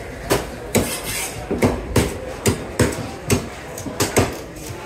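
Repeated chopping strikes of a knife through fish onto a wooden cutting block, about two a second.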